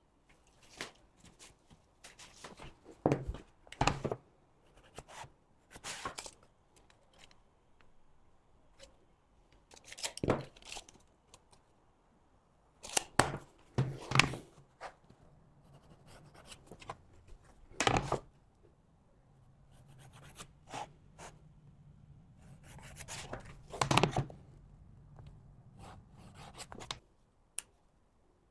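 Irregular scrapes, clicks and knocks from hands working with tools and material at a workbench, with short rasping strokes like cutting or tearing. A faint low hum comes in during the second half.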